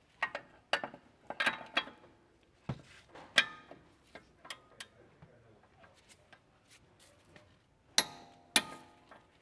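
Torque wrench working the nut of a front sway bar end link: scattered ratchet clicks and clinks of metal tools, then two sharp clicks about half a second apart near the end, the wrench signalling that the 110 Nm setting is reached.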